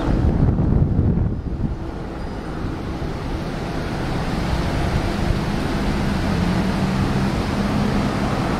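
Air ambulance helicopter flying away after takeoff: a steady low rumble of rotor and engine, dipping a little about two seconds in and then slowly building again. Wind buffets the microphone.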